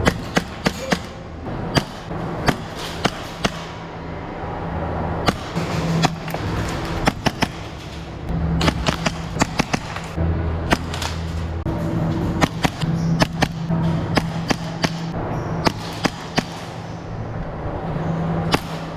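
Action Army AAP-01 gas blowback airsoft pistol firing single shots and quick runs of two or three, each a sharp crack, at uneven intervals over background music.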